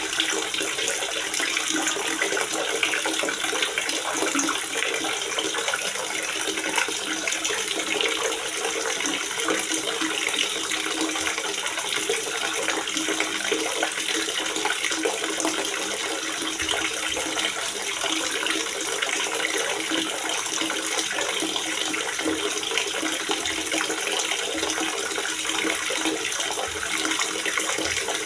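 Water gurgling and splashing steadily as it flows into a water reservoir.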